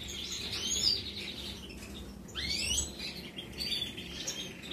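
Caged European goldfinches chirping, several quick rising calls over a soft, steady high twitter.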